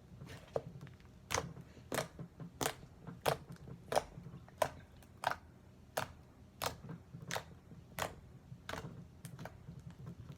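Slime being squeezed and pressed by hand, giving sharp popping clicks at a steady pace, about three every two seconds.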